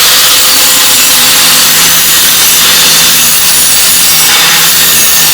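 Handheld grinder running steadily under load, its disc grinding the cutting edge of a riding-mower blade to sharpen it: a loud, hissing scrape over a steady motor hum.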